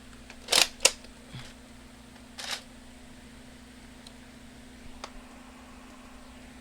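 Plastic clicks of a Nerf blaster being reloaded by hand: two sharp clicks close together about half a second in, a short scrape at about two and a half seconds, then a few faint ticks.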